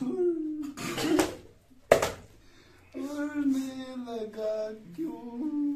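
A young man singing a wavering tune in drawn-out notes, with a sharp crack just before two seconds in.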